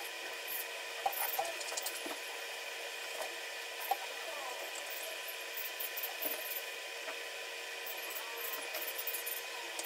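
Quiet room tone: a steady hum of several even pitches with faint scattered clicks and taps.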